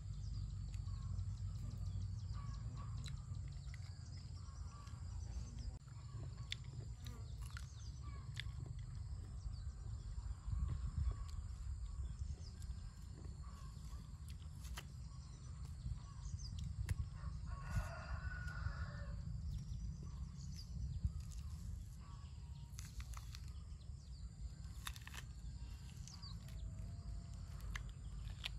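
Rural outdoor ambience with a steady low rumble and a steady high insect drone. A rooster crows once, about two-thirds of the way through, in a single call lasting about two seconds. Faint scattered clicks run throughout.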